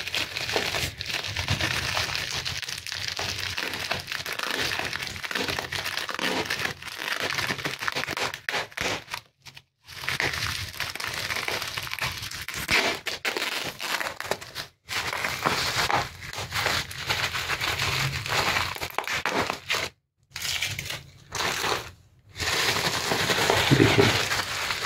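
Plastic bubble wrap crinkling and rustling as hands peel its sticky tape and unwrap it from a cardboard box, stopping briefly a few times.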